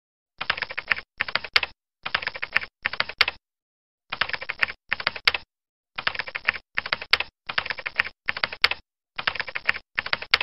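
Computer keyboard typing sound effect: rapid key clicks in about a dozen short bursts of roughly half a second each, broken by brief silent pauses. It accompanies on-screen text being typed out.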